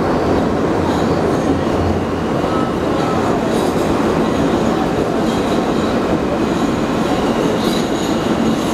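Steady rumble of an R160 subway car's wheels on the rails, heard from inside the moving car, with faint wheel squeals now and then.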